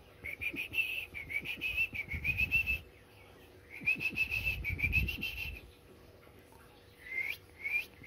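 Sooty-headed bulbul singing: two long phrases of quick, wavering notes, then two short calls near the end.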